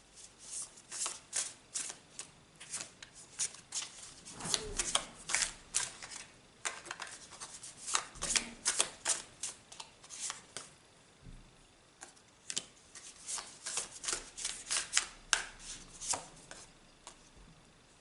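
Tarot deck shuffled by hand: a long run of quick, irregular card flicks and slaps, with a short lull about two-thirds of the way through.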